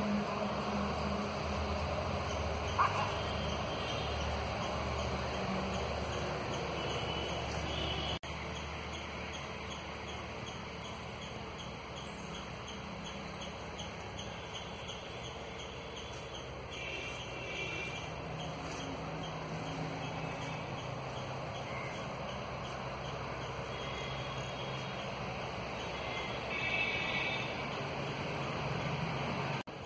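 Outdoor ambience: a steady low background rumble with birds calling now and then, a short burst of calls about halfway through and another near the end.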